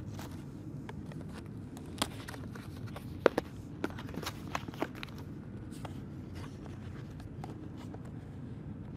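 Cardboard product packaging being opened and handled: a handful of sharp clicks and taps from the box flaps and tray, mostly between about two and five seconds in, over a steady low rumble.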